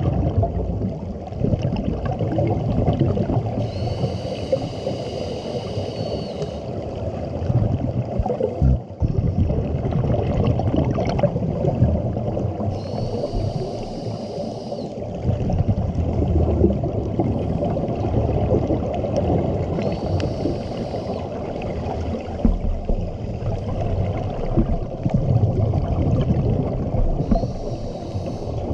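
Scuba diver breathing through a regulator: a high hissing inhale with a faint whistle lasts two to three seconds and comes four times, about every seven to eight seconds. In between, exhaled bubbles and water rumble.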